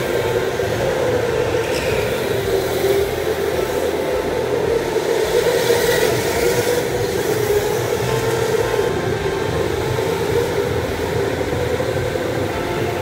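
Electric go-karts running laps on an indoor track: a steady hum that wavers gently in pitch as the karts speed up and slow, over a wash of tyre and hall noise.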